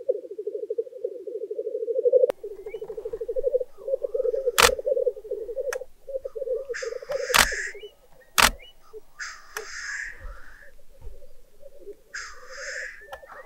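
Male black grouse lekking: a continuous bubbling, cooing chorus, broken in the second half by three hissing calls about a second long. A camera shutter clicks three times, single frames.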